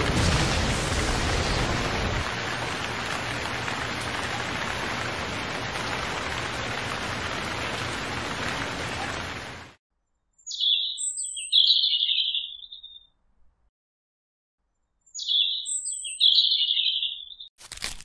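Steady hiss of rain falling on sand, which cuts off suddenly about ten seconds in. After it, a bird chirps twice, the same short high call repeated a few seconds apart.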